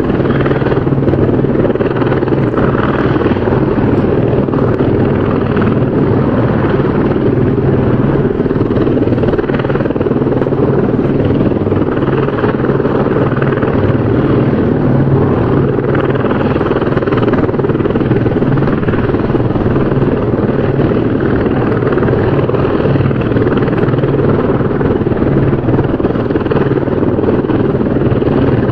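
Helicopter rotor and engine noise, a steady continuous drone with no change in pitch or level.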